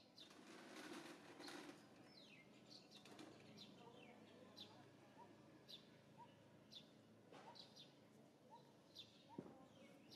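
Faint birds chirping: a scatter of short high chirps and, from about four seconds in, a lower short rising note repeated about twice a second. A brief rustle about a second in and a single sharp click near the end.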